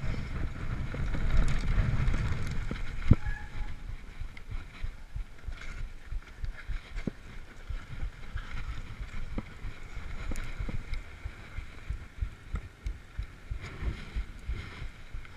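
Mountain bike riding fast downhill over gravel and dirt: tyre rumble and wind on the microphone, heaviest in the first few seconds, with frequent short clicks and knocks as the bike rattles over bumps.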